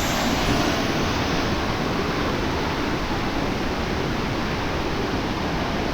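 St. Mary Falls, a tiered mountain waterfall, rushing steadily: a dense, even noise of falling water.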